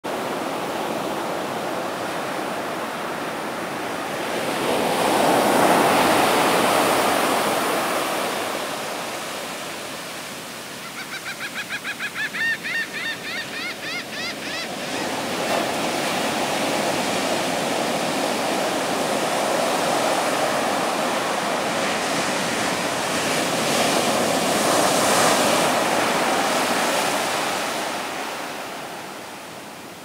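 Rough ocean surf breaking and washing up a sandy beach, swelling loud twice as the big waves come in and easing near the end. Midway a quick run of short, high, rising chirps sounds over it for a few seconds.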